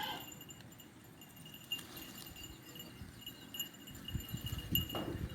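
Goats moving about with low rustling and clicks, and a goat beginning to bleat near the end.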